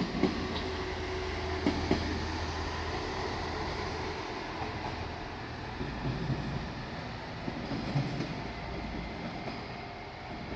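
Diesel railcar running past with a steady low engine drone, its wheels clacking over rail joints: a few sharp clacks in the first two seconds and heavier thumps about six and eight seconds in.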